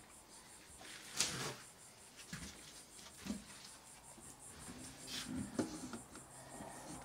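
A sheet of board being handled and pressed against wooden wall studs: scattered knocks and scrapes, the sharpest knock about a second in.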